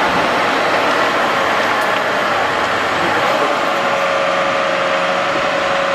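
Case IH Quadtrac 600 tracked tractor's diesel engine running steadily under load as the machine crawls through deep mud. Its pitch steps up slightly about halfway through.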